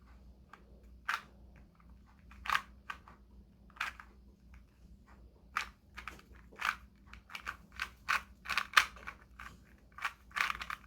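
Plastic Rubik's cube layers being turned by hand, sharp clicks and clacks, sparse at first and quickening to several a second from about halfway in. The cube turns loosely.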